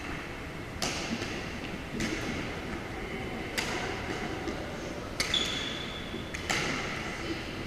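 Badminton rally: rackets striking the shuttlecock five times, about once every one to one and a half seconds, each a sharp crack with a short ringing tail. A brief high squeak follows the fourth hit, a shoe squeaking on the wooden court floor.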